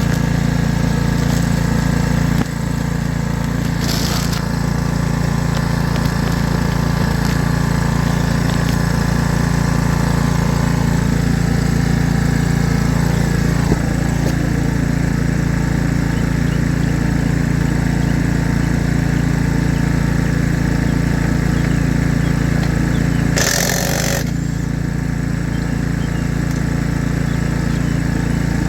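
A diesel engine running steadily at idle, with two short bursts of noise, one about four seconds in and one near the end.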